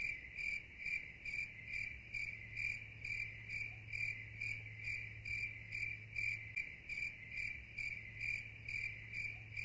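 Crickets chirping in an even rhythm, about three chirps a second: the stock 'crickets' of an awkward silence.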